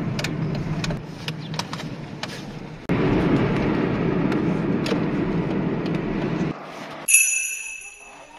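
Car road and engine noise inside the cabin while driving, a steady low rumble with a few faint clicks, broken by sudden jumps in level. It stops near the end, and a short high ringing tone follows and fades.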